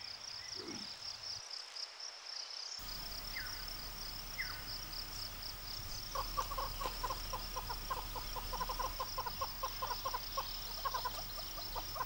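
Steady, pulsing trill of insects, with a couple of short bird chirps and then, from about six seconds in, a bird calling in a fast series of short notes.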